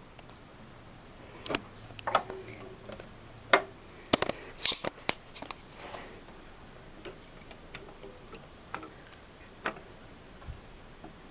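Irregular plastic clicks and knocks of a plastic faceplate being handled and pressed onto the front of an optical disc drive, with a cluster of louder knocks about four to five seconds in.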